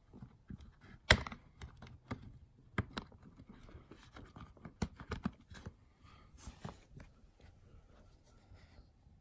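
Scattered sharp plastic clicks and knocks as a small rocker switch is pushed and worked into a notch in a clear plastic soap box, the loudest click about a second in.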